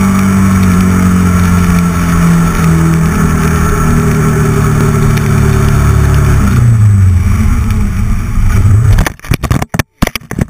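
Kawasaki KLR250 single-cylinder engine running at road speed, its pitch dropping about two-thirds through. Near the end the engine note cuts off into a quick run of sharp knocks and clatter as the motorcycle hits a fallen pine tree.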